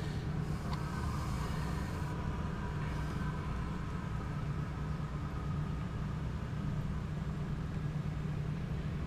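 Steady low hum of a vehicle's engine idling, heard from inside the cabin.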